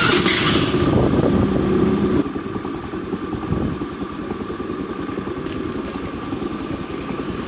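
Honda Scoopy i scooter's single-cylinder engine running, louder for the first two seconds and then settling to a steadier, quieter run.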